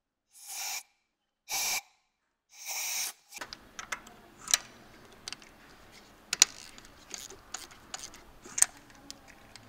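Three short blasts of compressed air from an air blow gun, about a second apart. Then scattered light metallic clicks and taps as a socket wrench and extension are worked on the engine.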